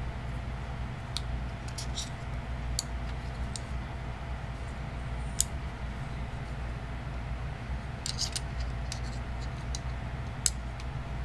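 Small metal clicks and taps from Gerber EAB utility knives being handled, irregular and sometimes in quick clusters, over a steady low hum.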